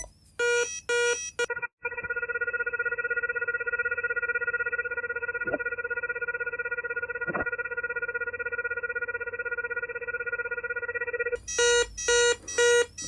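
Electronic beeping from an Orisec alarm panel's keypad sounder. A few short beeps give way to one steady tone held for about nine and a half seconds, which then breaks into quick repeated beeps near the end.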